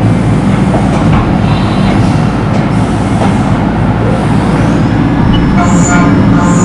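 Haas VF-4 CNC vertical mill running, its end mill profile-cutting a steel gear: a loud, steady machining rumble and grind. Near the end, short high chirps repeat about every 0.7 seconds.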